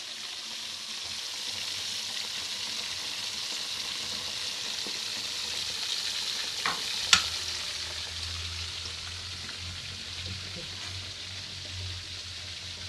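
Carp frying in hot oil, a steady sizzle, with two sharp clicks a little past halfway, the second the loudest.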